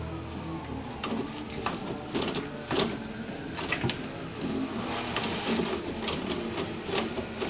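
Toilet paper roll being pawed and spun on its holder: paper rustling, with irregular clicks and rattles about every half second to second, over a faint steady low hum.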